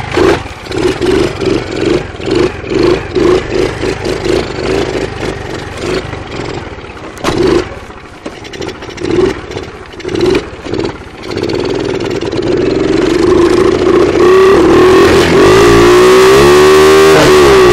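Small dirt bike's engine running, its revs pulsing about twice a second at first. Then it holds steadier and louder revs over the last few seconds.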